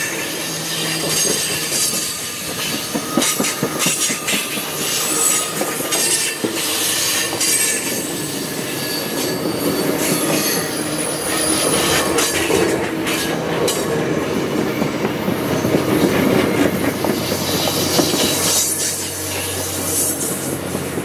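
Rocky Mountaineer passenger coaches rolling past close by on a curve: steel wheels clatter over the rail joints, with a thin, high-pitched wheel squeal from the curve.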